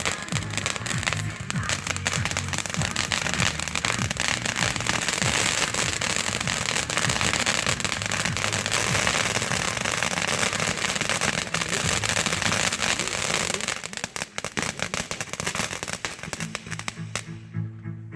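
Fireworks going off in a dense, rapid crackle, thinning out and stopping near the end, over background music.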